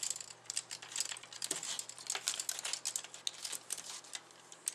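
Small irregular clicks and rattles of a Transformers Alternators Shockblast toy's plastic parts being handled, as the head is worked up through the narrow gap in the hood.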